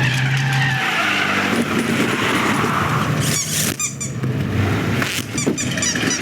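Car driving sound effects: steady engine and road noise, with bursts of short high squeaks around the middle and again near the end.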